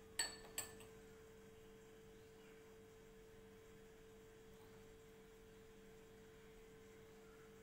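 Near silence with a faint, steady, high hum, broken by two short ringing clinks about half a second apart just after the start.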